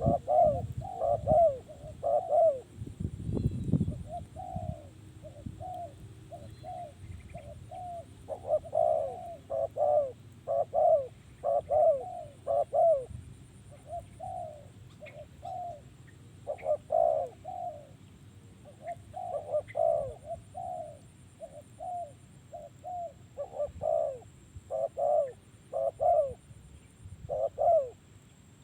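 Spotted dove cooing, repeating its short descending coo notes in phrases of several notes with short pauses between them. A few low thuds sound in the first few seconds.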